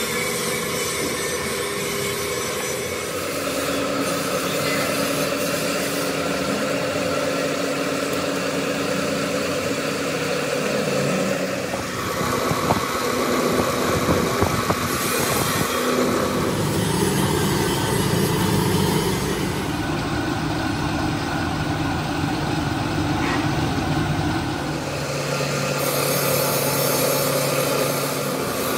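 Machinery running steadily, its hum changing abruptly several times.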